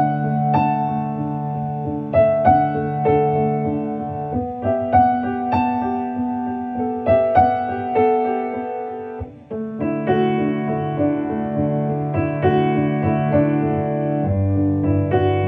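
Background piano music: struck notes and held chords over a steady accompaniment, with a short break about nine seconds in.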